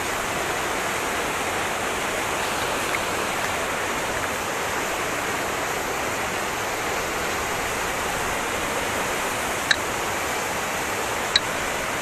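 A waterfall rushing steadily, its falling water giving an even, unbroken noise. Two brief sharp clicks come near the end.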